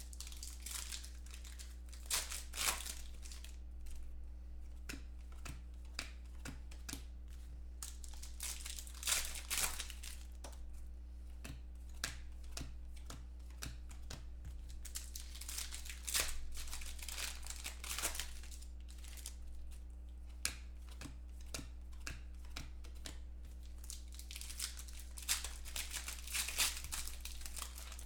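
Foil trading-card pack wrappers crinkling and tearing as football card packs are ripped open by hand, in repeated bursts over a steady low electrical hum.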